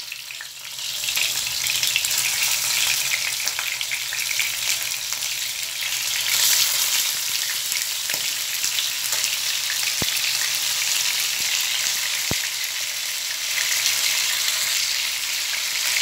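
Spice-coated chicken pieces frying in hot oil in a pan: a steady, high sizzle that swells about a second in as pieces are laid into the oil, then holds. A couple of faint ticks come late on.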